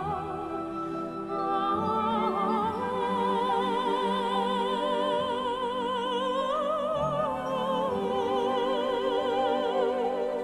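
Music: a soprano-range operatic voice singing long held notes with wide vibrato, over a sustained accompaniment.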